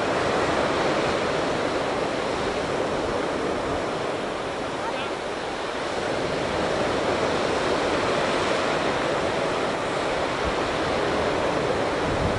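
Steady wash of sea surf breaking into a sandy cove, mixed with wind on the microphone. It eases slightly about five seconds in.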